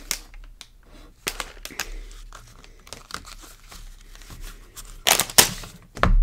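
Plastic Lego parts bags crinkling and rustling as they are handled, with scattered clicks and a louder burst of crinkling about five seconds in.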